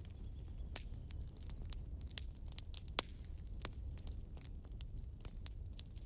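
Wood fire burning in a fireplace: irregular sharp crackles and pops from the burning logs over a low steady rumble, the loudest pop about three seconds in. A faint high whistle sounds in the first second or so.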